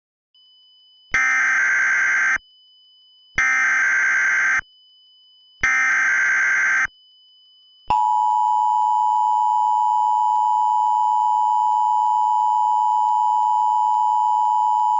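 Emergency Alert System alert sequence: three short bursts of the SAME header's data screech, each about a second long and about a second apart, then a steady attention tone starting about eight seconds in. The header and attention signal precede a broadcast tornado warning.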